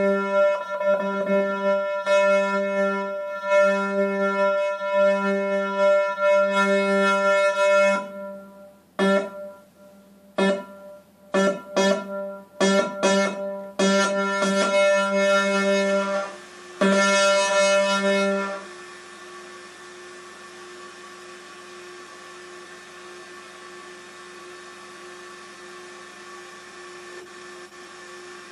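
A held instrument note played through a Korg G3 effects pedal. It swells and fades in slow even pulses for about eight seconds, is then cut into short stop-start bursts, holds steady for a moment, and about two-thirds of the way in drops to a quieter steady drone at a higher pitch.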